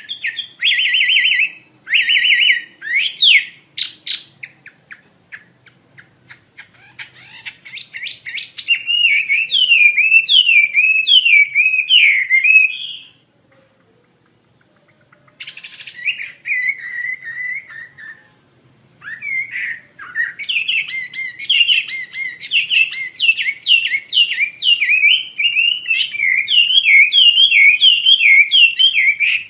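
Chinese hwamei (melodious laughingthrush) singing vigorously in full song: long, fast runs of varied whistled notes sweeping up and down, with a few harsh, buzzy phrases near the start. The song breaks off for about two seconds midway, then starts again.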